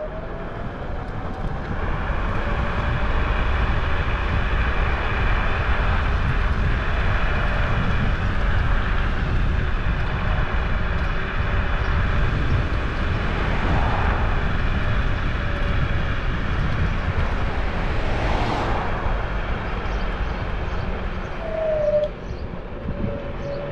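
Steady engine and rushing noise of a vehicle. It grows louder about two seconds in and holds at a constant level through most of the stretch.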